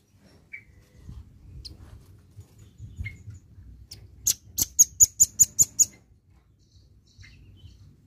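Velvet-fronted nuthatch calling: a few single short, high chips, then about halfway through a fast run of about eight loud, sharp, high notes lasting under two seconds.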